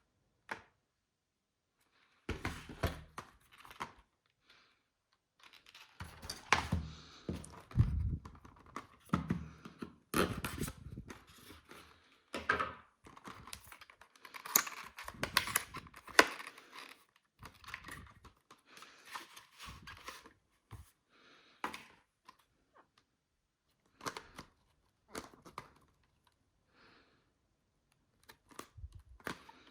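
Retail packaging of a DDR4 RAM kit being handled and opened by hand: irregular rustling, clicks and knocks of cardboard and plastic. It is busiest from about two seconds in to about twenty seconds in, then thins to a few scattered clicks.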